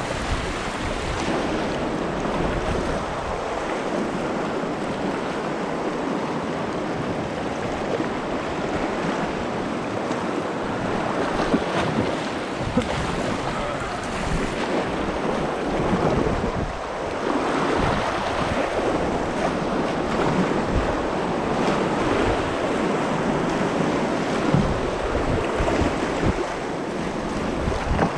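Steady rush of river water on the Gunnison, with wind buffeting the microphone in uneven low thumps.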